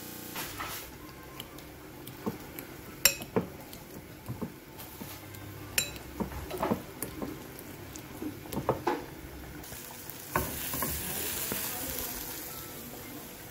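A metal fork clinking and scraping against a glass bowl as boiled potatoes are mashed, in irregular sharp clicks. About ten seconds in, a soft sizzle takes over as a mash is stirred with a wooden spoon in a hot pan.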